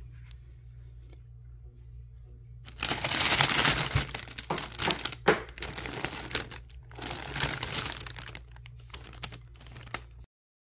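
Clear plastic bread bags crinkling and rustling as bagged loaves of sourdough are handled, loudest from about three seconds in and coming in bursts after that, over a low steady hum. The sound cuts off abruptly near the end.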